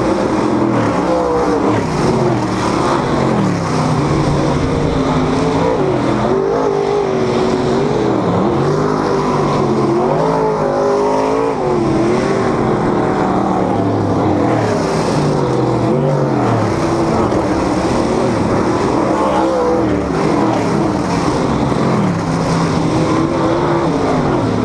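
Dirt modified race cars' V8 engines running at racing speed, the pitch rising and falling again and again as the cars lift and accelerate through the turns and pass by. Several engines overlap the whole time.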